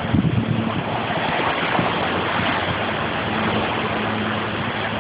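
Creek swollen by hailstorm runoff rushing steadily, an even wash of water noise.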